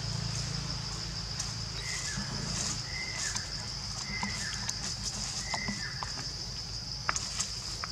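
Outdoor forest ambience: a steady high-pitched hum over a low rumble. In the middle come four short, high animal calls about a second apart, and a few sharp clicks follow near the end.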